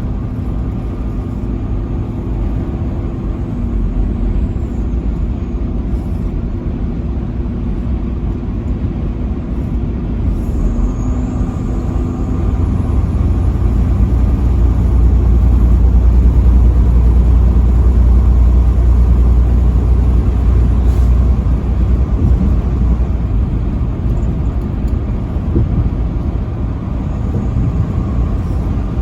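Steady engine and road drone from a truck driving on the interstate, with a low rumble that swells for several seconds in the middle.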